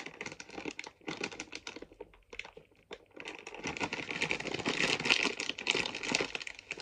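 Crinkly plastic crisp packet being bitten, twisted and pulled as she struggles to tear it open, a dense crackling that grows louder about halfway through.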